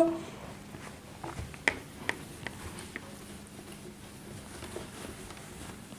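Faint rubbing of a cloth duster wiping a whiteboard, with a few light clicks and taps between about one and three seconds in.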